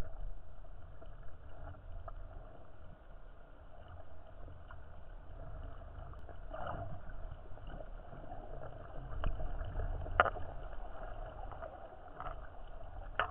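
Muffled underwater sound picked up by a camera in its waterproof housing: a low rumble of moving water, with a few faint clicks about seven, nine and ten seconds in.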